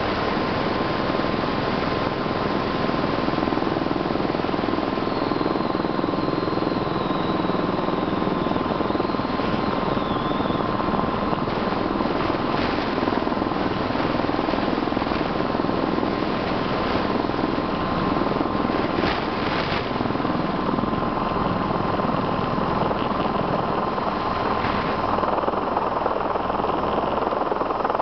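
Helicycle single-seat kit helicopter hovering: a steady rush of turbine and rotor noise with a constant high whine.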